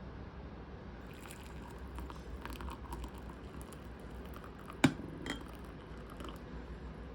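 Faint small handling noises over low room tone, with one sharp click about five seconds in and a softer one just after.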